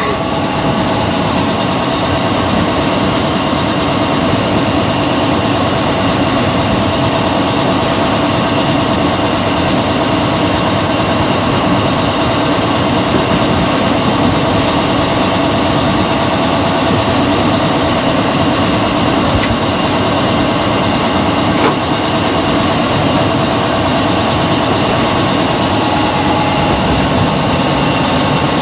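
Steady cab noise of a Class 40 diesel-electric locomotive under way: its English Electric 16-cylinder diesel running continuously along with the running noise of the train. Two short, sharp clicks come about two thirds of the way through.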